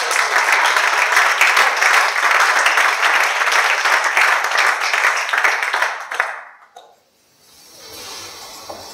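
A group of people applauding with dense clapping, which dies away about six and a half seconds in.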